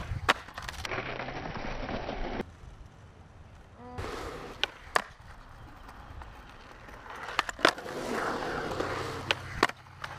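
Polyurethane skateboard wheels rolling on a concrete bowl, with the trucks grinding along the bowl's coping and several sharp clacks of the board hitting concrete and coping.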